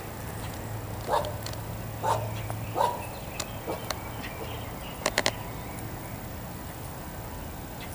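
Dogs barking: four short barks about a second apart in the first four seconds, then a quick cluster of clicks about five seconds in.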